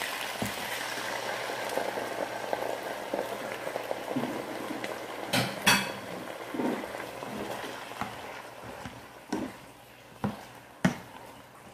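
Watery sweet and sour sauce sizzling and bubbling as it hits a hot pan of fried chicken and vegetables, the sizzle dying down over several seconds. Two sharp clacks come about halfway through, and a few knocks of a spatula against the pan come near the end as the food is stirred.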